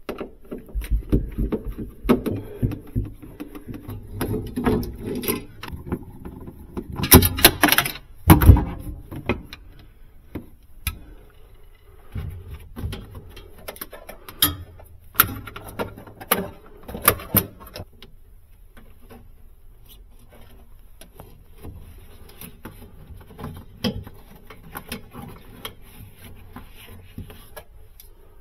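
Irregular clicks, knocks and rattles of hands working on a Sub-Zero 601R freezer's evaporator coil and its wiring. The loudest knocks come about seven to nine seconds in, and it turns sparser and fainter in the last third.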